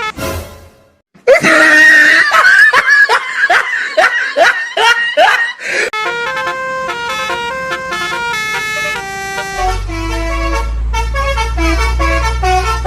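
A burst of laughter, a long run of rapid 'ha's, then a bus telolet horn playing a quick melody of stepped multi-tone notes, with a low rumble joining underneath for the last few seconds.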